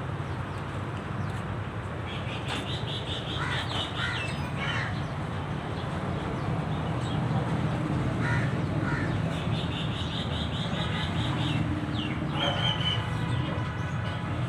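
Small 660 cc engine running steadily at idle with the misfire it is being checked for, while crows caw in short bouts several times over it.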